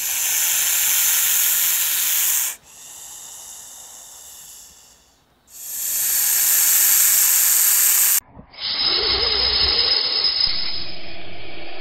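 Snake hissing sound effects: two long, loud hisses with a fainter hiss between them. From about eight and a half seconds in, a duller, rougher breathy hiss with a low rumble under it takes over.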